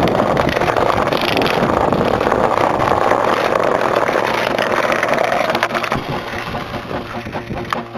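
Skateboard wheels rolling over brick paving with a steady rumbling rattle, dropping off about six seconds in.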